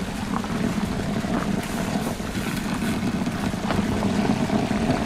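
Heavy round stone roller turning under animal draught: a steady low rumble and grinding.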